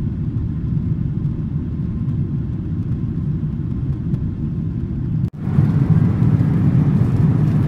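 Cabin noise of a Boeing 777-300 in flight: a steady low rumble of engines and airflow heard from a passenger seat. It cuts out for an instant about five seconds in and comes back a little louder and hissier.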